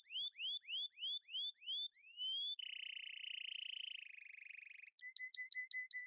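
A quick series of rising chirps, about three a second, then a steady buzzing tone lasting about two seconds, then rapid even beeps, about five a second.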